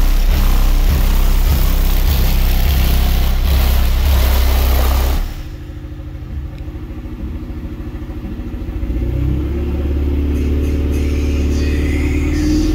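Car audio system pounding deep bass music through two Digital Designs Z-series 15-inch subwoofers. It is very loud and full for about five seconds, then drops abruptly to mostly sustained deep bass notes that build up again toward the end.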